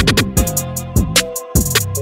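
Background music with a steady hip-hop style beat: deep kick drums that drop in pitch, ticking hi-hats and held synth notes, the bass cutting out for a moment about a second and a half in.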